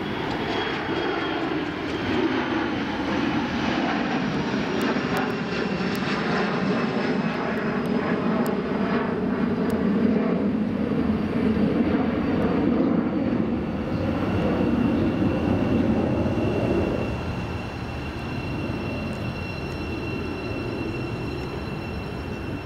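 Jet airliner passing over. Its engines give a steady rumble that eases after about seventeen seconds, with a high whine that slowly falls in pitch as it goes by.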